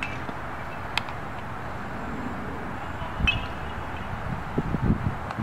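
Open-air wind noise with low gusts buffeting the microphone near the end, broken by two sharp cracks about a second and three seconds in.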